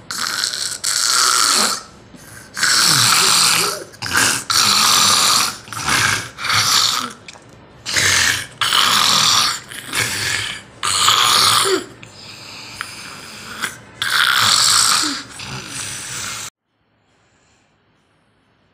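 A person snoring heavily in sleep: a run of loud, harsh snores at an irregular pace, each lasting up to about a second, cutting off suddenly near the end.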